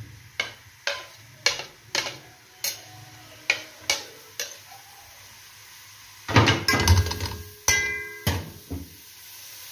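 A cooking utensil knocking and scraping against a stainless-steel pan while sliced raw onions are turned in it before any oil goes in: single knocks about every half second, a pause, then a louder clatter with a short metallic ring.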